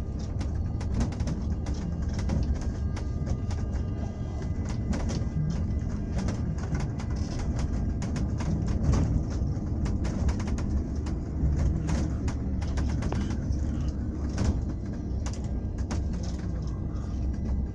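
Ride inside a moving vehicle: a steady low rumble with frequent short rattles and clicks throughout.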